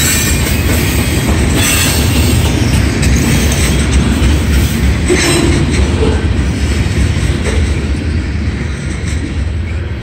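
Loaded covered hopper cars of a freight train rolling past at close range, steel wheels rumbling and clattering over the rails with a few brief high squeals. The sound eases off slightly near the end as the last car goes by.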